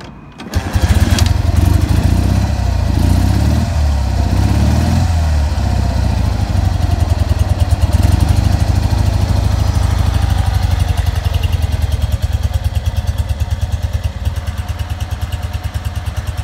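1964 BMW R50/2's flat-twin boxer engine kick-started from stone cold, catching about half a second in. It is blipped unevenly for the first few seconds, then settles into a steady, evenly pulsing idle.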